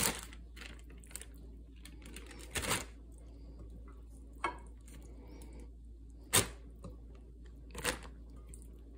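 Raw chicken drumsticks being packed into a plastic zipper bag: a handful of short crinkles of the plastic and soft knocks, the loudest about two-thirds of the way through.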